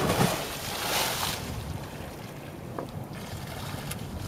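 A big splash of water as the soap is rinsed off, sudden and loud for about a second and a half, then a steady rush of wind and water.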